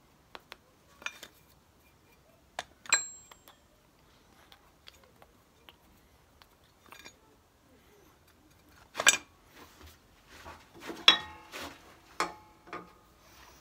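Metal tools and parts clinking and knocking in separate strikes. The loudest strikes come about three seconds in and near the end, a few of them ringing briefly.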